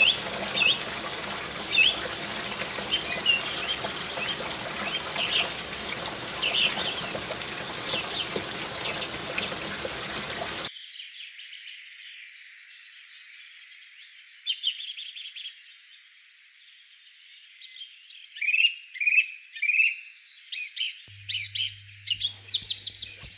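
Birds chirping and tweeting over the steady rush of water from a toy water pump. The water noise cuts off abruptly about ten seconds in, and the chirping carries on alone after that.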